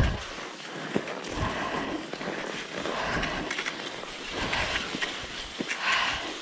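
Cross-country skis sliding and scraping over groomed snow, with ski poles planting in the snow now and then.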